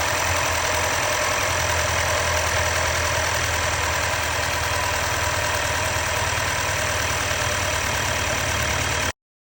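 2021 Mercedes GLE 350's 2.0-litre four-cylinder engine idling steadily, with a misfire on cylinder 3.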